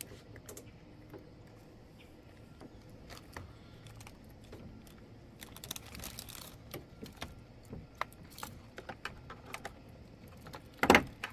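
Light clicking and rattling of plastic toy kitchen parts being handled and fitted together, with a sharper, louder clack near the end.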